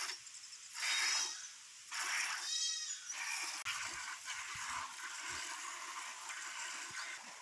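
Hand milking of a cow: milk squirting from the teats into a bucket in short hissing spurts, which run together into a steadier hiss after about three seconds. A lamb bleats briefly about two and a half seconds in.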